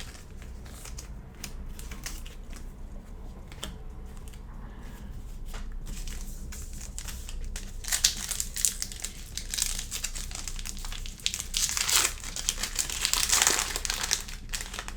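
A plastic trading-card pack wrapper being torn open and crinkled, with loud bursts of crinkling about halfway in and again near the end. Light ticks of cards being handled come before that.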